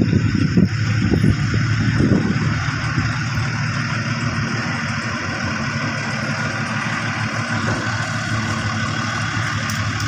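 Diesel engine of a pneumatic-tyred road roller running steadily as the roller rolls over fresh asphalt, with a heavier, uneven rumble in the first couple of seconds.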